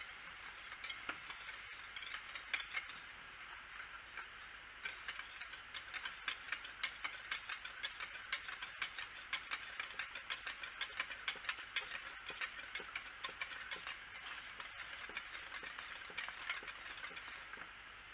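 Wire whisk beating thick hot-process soap paste in a ceramic slow-cooker crock, its wires clicking quickly and rhythmically against the crock's sides, busiest through the middle stretch.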